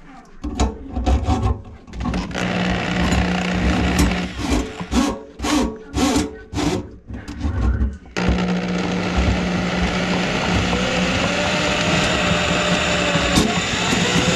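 Handheld electric drum drain auger (General Wire Super-Vee) spinning its cable into a kitchen sink drain line clogged with food grease. The motor runs in short on-off bursts on the trigger, then runs steadily from about eight seconds in.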